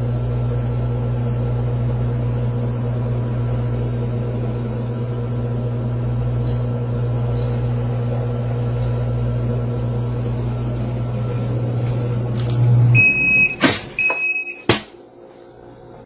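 Giantex portable washing machine's motor running with a steady low hum, which cuts off about 13 seconds in. Two short high electronic beeps from the machine follow, mixed with a few sharp clicks.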